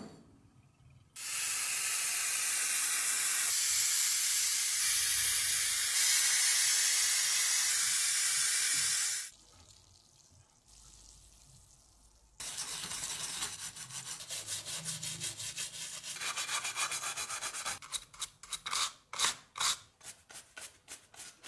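Aerosol paint stripper spraying in one long steady hiss of about eight seconds. After a quiet pause, a brush scrubs a small metal figure in rapid back-and-forth strokes.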